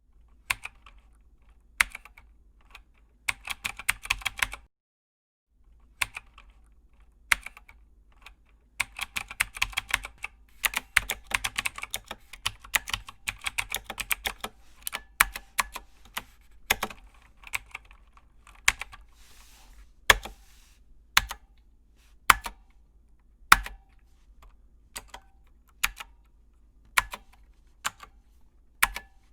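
Typewriter keys clacking: quick runs of typing in the first half, then slower single strikes about a second apart. A brief rushing noise comes about twenty seconds in.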